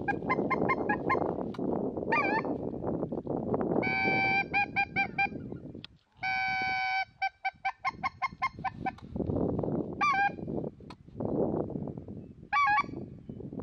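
Wild geese flying over, honking in repeated bursts of calls, with wind rumbling on the microphone between the calls.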